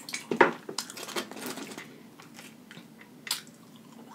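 Close-up chewing of fried chicken wings: an irregular string of short crunches and mouth smacks, the loudest about half a second in and another sharp one about three seconds in.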